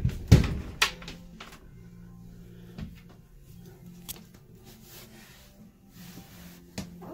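Camper van's bathroom door being unlatched and swung open: a cluster of sharp latch clicks and knocks in the first second, then a few lighter knocks, over a low steady hum.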